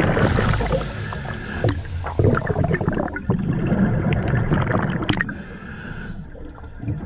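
Underwater sound around a cave diver with camera: bubbling and gurgling of exhaled air over a low rumble, with many short knocks and clicks from gear and movement.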